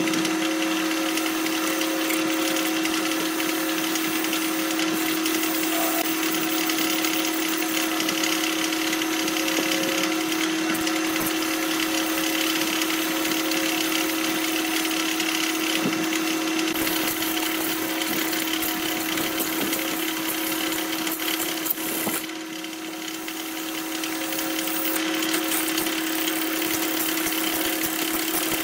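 Wood lathe running with a steady motor hum while a gouge cuts a spinning epoxy-resin and bamboo-root blank, a continuous hissing scrape of the cut. About three-quarters of the way through the cutting eases off for a couple of seconds, then picks up again.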